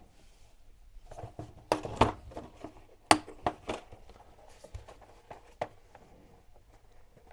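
Parts of a gas soldering iron kit being handled out of their box: a run of sharp clicks and knocks, the loudest about two and three seconds in, with light rustling between them.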